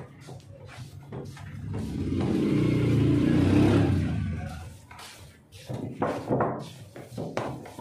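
A motor vehicle passing by: its engine rumble swells from about two seconds in, is loudest around three to four seconds, then fades away by five seconds. Soft knocks from dough being handled on the worktable come before and after it.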